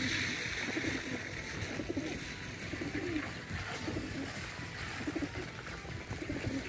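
Flock of feral pigeons cooing, low calls repeating about once a second, over a rushing hiss that is strongest in the first two seconds.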